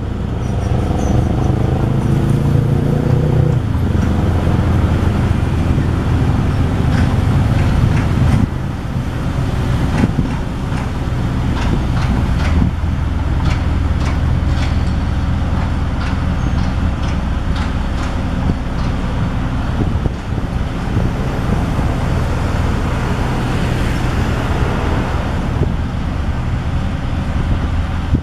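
Hamm 3410 single-drum soil compactor's diesel engine running as the roller drives forward, its note rising for the first few seconds and then holding steady, with scattered short clicks over it.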